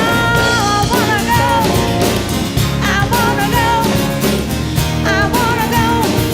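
Live country-rock band playing an instrumental break: drums and bass keep a steady beat under a high lead line that slides up at the start, holds a note, then plays wavering, bent notes.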